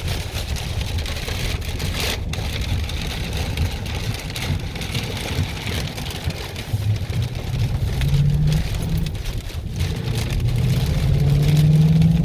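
Truck engine and road noise heard from inside the cab while driving, with the engine note rising about eight seconds in and again near the end as it accelerates, over a steady rush of storm wind and rain on the vehicle.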